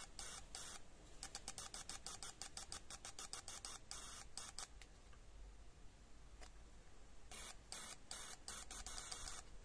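Fuel injector being cleaned, fired in short bursts through its red and black leads, each burst a brief hiss: a few at first, then a fast run of about five a second, a pause, and several more near the end.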